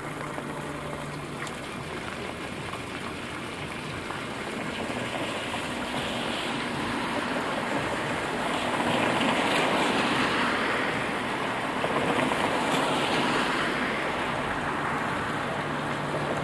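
Rain falling on a city street, with the wet tyre hiss of passing traffic swelling from about four seconds in, loudest around the middle, then easing slightly.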